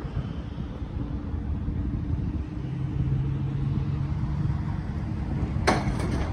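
Low, steady rumble of a running vehicle engine with a faint steady hum, and one sharp click near the end.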